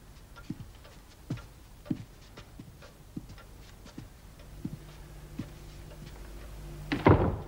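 Slow footsteps, a light tap about every two-thirds of a second, as a man walks in across a wooden floor. A low steady hum comes in about halfway, and a louder sudden sound lands near the end.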